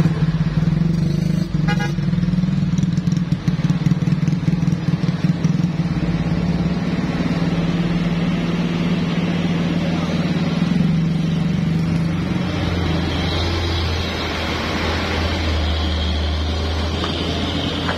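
Road traffic on a steep hairpin bend: engines of passing cars and motorcycles running steadily, with a brief horn toot about two seconds in. From about two-thirds through, a deeper engine sound takes over as a heavy diesel tanker truck passes close.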